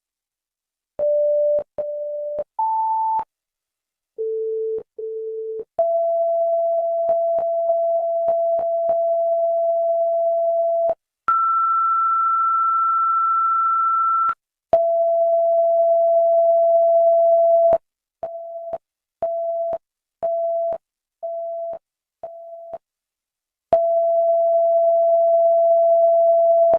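Electronic test tones: a sequence of pure, single-pitch beeps that switch on and off abruptly with a click, changing pitch between steps. Short paired beeps come first. Then come long steady tones, with a higher one about 11 seconds in, a run of short beeps, and a final long tone.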